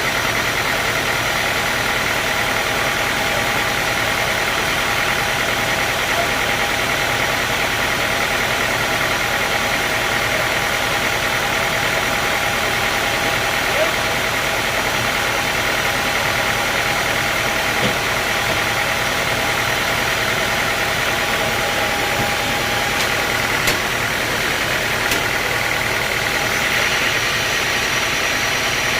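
Sawmill machinery running steadily: an even mechanical drone with a high, constant whine and a few faint ticks.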